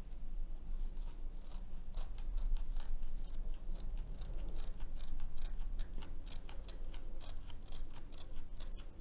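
Scissors snipping through the canvas of a diamond painting, trimming close along the edge of the drills: a steady run of short snips, a few a second, starting about a second and a half in.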